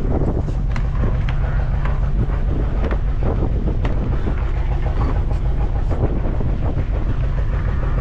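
Fishing boat's engine running slowly, with wind buffeting the microphone and scattered knocks and clatter on deck.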